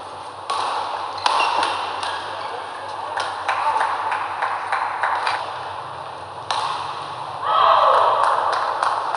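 Badminton rally sounds: sharp racket strikes on the shuttlecock and shoe squeaks on the court floor. About 7.5 s in, a voice calls out loudly.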